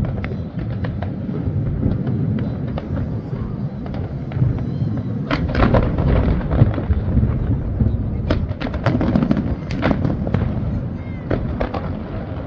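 Fireworks going off: a continuous low booming under many sharp cracks and pops, with dense flurries of cracks about five seconds in and again from about eight seconds in.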